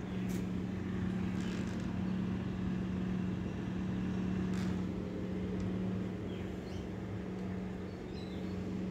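A steady low motor hum, with a few faint high bird chirps near the end.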